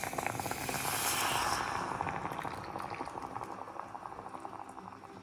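Hot water poured from a kettle into a hot pot of mashed ofada rice, rushing and bubbling as it hits the pan. The pour is loudest in the first two seconds, then tails off into a fine crackling simmer.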